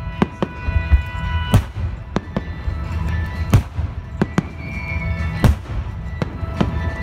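Aerial firework shells bursting: about a dozen sharp bangs at uneven intervals, over a low rumble, with music playing underneath.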